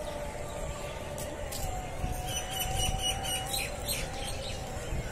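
Outdoor park ambience: a steady low rumble, with a small bird chirping in quick repeated high notes from a little after two seconds in to about three and a half seconds in.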